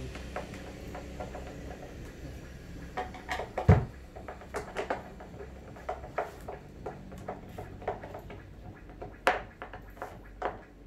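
Hand screwdriver work on the top panel of an 18-inch subwoofer cabinet: scattered clicks, scrapes and knocks, with one heavy thump on the cabinet about three and a half seconds in.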